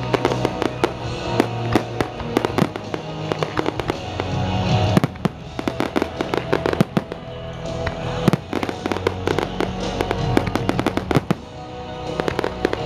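Fireworks display: shells bursting and crackling in rapid, irregular bangs, over music playing along with the show.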